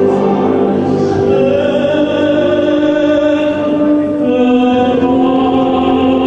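A male tenor sings an operatic ballad in long held notes over orchestral backing music, moving to new notes about a second and a half in and again about four seconds in.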